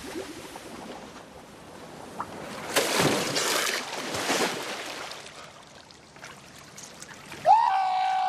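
Water splashing and sloshing around a swimmer stroking through the sea, loudest a few seconds in. Near the end a loud, steady high tone starts suddenly and holds.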